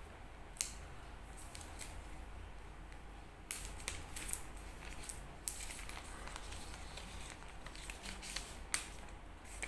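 Protective plastic film being peeled off a new OPPO Reno5 smartphone by hand: faint crackling of the film with a handful of sharp clicks and taps as fingers work at its edges.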